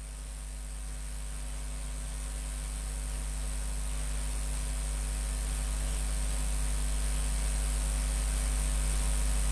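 Steady electrical mains hum with a high hiss, slowly and evenly growing louder.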